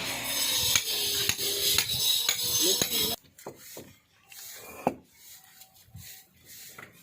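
Metal tool clinking and scraping against interlocking bricks, with sharp taps about twice a second. About three seconds in it drops abruptly to a quieter stretch with only a few isolated taps.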